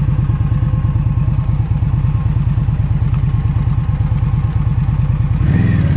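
Cruiser motorcycle's engine running steadily under way, in a quick even stream of low firing pulses. The engine note shifts briefly near the end.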